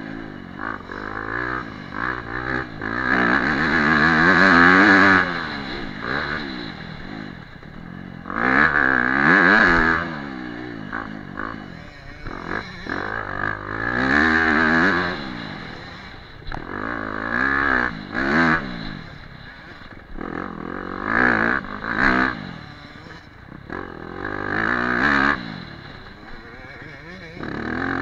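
Dirt bike engine revving hard and easing off again over and over, its pitch sweeping up and down in surges about every three to four seconds as the rider accelerates and shifts along a rough dirt track.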